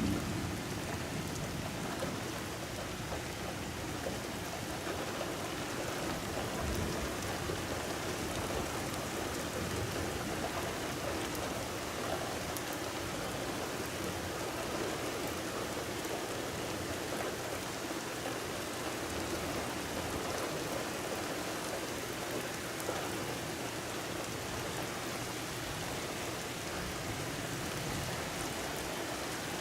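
Steady rain falling in a thunderstorm, an even, unbroken hiss of drops.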